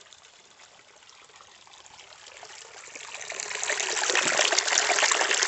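Small, shallow mountain stream running and trickling over rocks, faint at first and growing steadily louder from about three seconds in as the microphone comes right down to the water.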